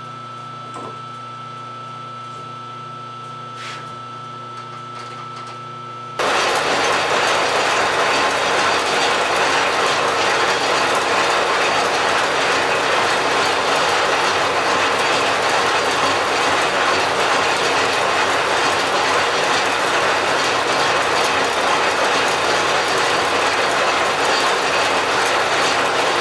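Large engine lathe boring out the brazed bore of a cast-iron transmission housing. A quieter steady machine hum with a few faint clicks gives way, about six seconds in, to loud, steady cutting noise as the tool takes the braze off.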